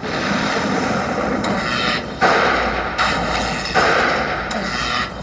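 Slot machine sound effect of dense, crackling firecracker-like bursts. It starts suddenly and pulses about every three-quarters of a second.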